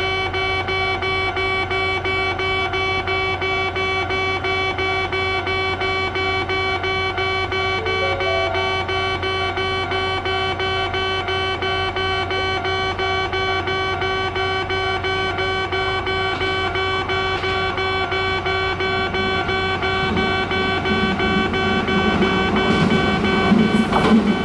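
Kintetsu Nagoya Line level crossing warning alarm ringing on and on in a fast, even repeating tone. In the last few seconds the rumble of an approaching train grows louder beneath it.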